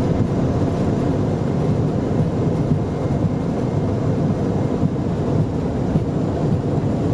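Steady noise of an aircraft's engines and rolling wheels, heard inside the flight deck as it moves along the runway.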